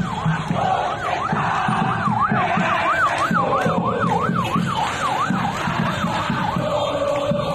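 A siren warbling fast, rising and falling about four times a second, fading near the end, over a low pulsing background.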